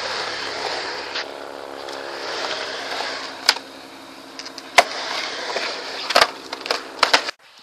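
Skateboard wheels rolling over concrete, with about six sharp clacks of the board and trucks striking the concrete. The sound cuts off suddenly near the end.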